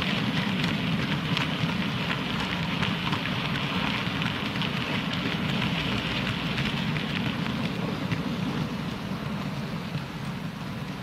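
Model railway goods wagons rolling along the track: a steady rolling rumble with rapid, irregular clicking of the wheels over the rail joints, easing off slightly near the end.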